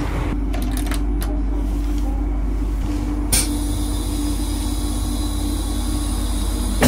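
Steady low running rumble inside a moving train carriage, with a faint steady hum, a few light clicks early and a sharper click a little over three seconds in.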